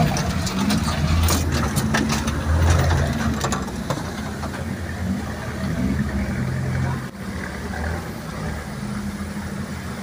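Off-road 4x4's engine running at low revs, heard from inside the cabin, with sharp knocks and rattles over the first few seconds.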